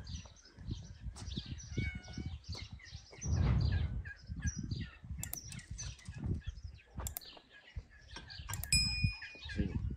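Birds chirping over and over with short, high, quick notes, among scattered low thuds. A louder brief rustle comes about three seconds in, and a clear high whistled note near the end.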